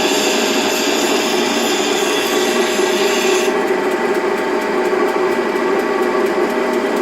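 Bench grinder running steadily while a high-speed steel skew chisel is ground side to side against the wheel; the grinding hiss stops suddenly about halfway through as the tool comes off the wheel, leaving the grinder spinning.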